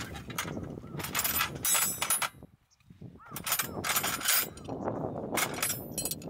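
Metal tent pegs clattering and rattling against each other in a metal case as they are handled, with a bright metallic ring, in two bouts with a short pause about halfway.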